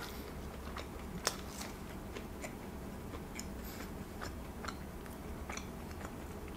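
Close-miked mouth chewing a Pizza Hut Cheez-It cracker pizza stuffed with mozzarella. It comes as faint, scattered crunches and clicks, with one sharper crunch about a second in.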